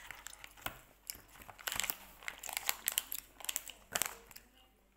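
Crinkling and crackling close to the microphone, a plastic snack wrapper being handled, in irregular clusters of sharp crackles.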